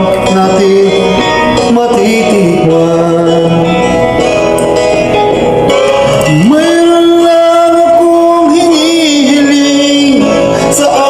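A man singing a Filipino folk song with musical accompaniment, holding a long note through the second half.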